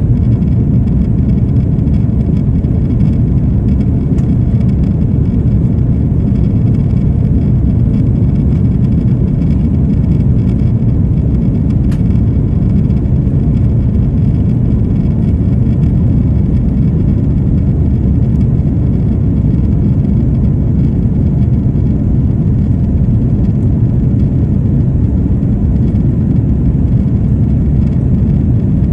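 Steady low roar of a Boeing 747 climbing after takeoff, its jet engines and rushing air heard from inside the passenger cabin.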